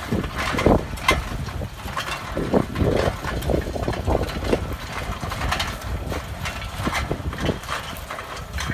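Tractor engine running steadily while it pulls a mounted row-crop cultivator through soil, with irregular knocks and rattles over the top.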